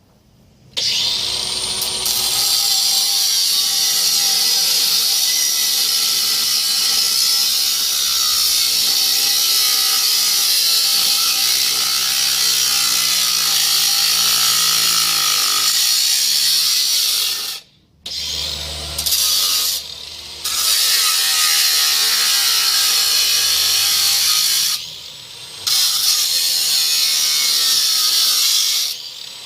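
Angle grinder cutting through metal on the lawnmower frame: a loud, steady, high-pitched grinding that starts about a second in. The grinder stops briefly about two-thirds of the way through and twice more near the end.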